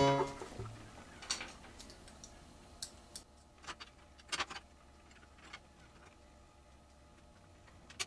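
Plastic keys of a Roland PC-300 MIDI keyboard being handled and fitted back into the key frame: scattered sharp plastic clicks and taps, irregular and about a second apart, the loudest a quick pair a little after four seconds in.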